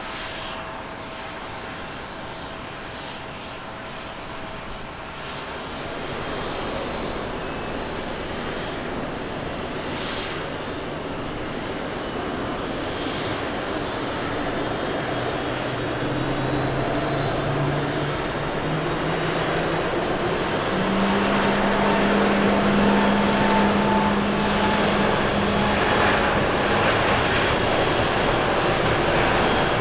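Airbus A350-900 jet engines at takeoff thrust on the takeoff roll. The noise grows steadily louder as the airliner accelerates down the runway, and its low engine tone steps up in pitch about halfway through. For the first few seconds there is instead the fainter sound of a Boeing 787-9 climbing away after takeoff.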